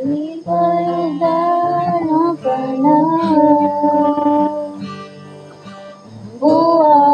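A person singing into a microphone over amplified backing music with guitar, holding long notes with a slight waver. The voice pauses about five seconds in and comes back near the end.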